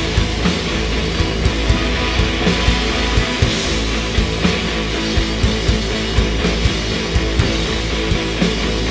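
Live rock band playing loud: electric guitars over a drum kit, with a steady beat of drum hits about three a second and no vocals.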